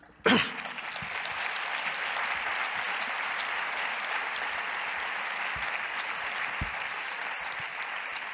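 Audience applauding steadily, with a sharp, loud burst as it breaks out just after the start.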